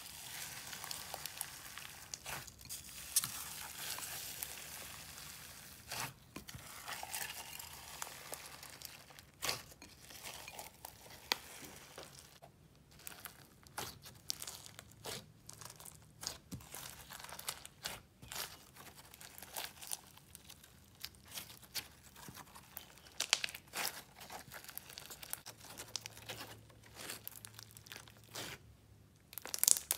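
Clear glue slime with foam beads in it being worked, giving irregular crackling, popping and tearing sounds with many sharp clicks. The slime is heavily overactivated, so it tears rather than stretches.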